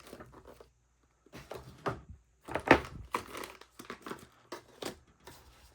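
Things being pushed aside on a tabletop by hand: a run of short, irregular rustles and knocks, the loudest a little under three seconds in.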